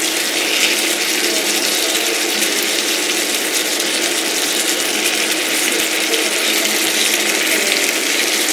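Chicken adobo simmering and sizzling steadily in a nonstick frying pan as its sauce boils down, the cooking liquid being reduced until the dish is dry.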